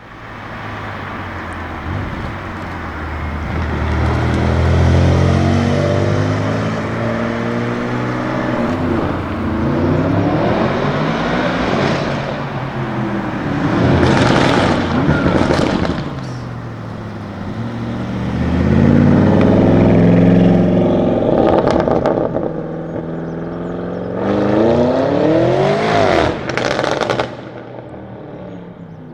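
Tuned Audi RS7 Sportback C8's twin-turbo V8 with catless downpipes running loud and revving up hard several times, its exhaust note climbing in pitch. Sharp exhaust crackles break in twice, around the middle and shortly before the end.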